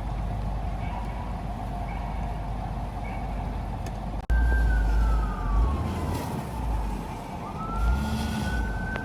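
A steady vehicle rumble, then after an abrupt cut about four seconds in, an emergency vehicle's siren wailing: a slow falling tone that rises again and starts to fall near the end, over a heavy low rumble.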